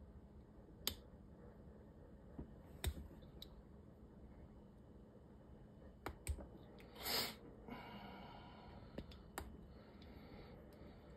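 Faint metal-on-brass clicks and scrapes of a Yellow Jacket gasket removal pick working at a stubborn rubber gasket inside a brass quarter-inch refrigerant hose adapter. There are a few sharp clicks scattered through it and one longer scrape about seven seconds in.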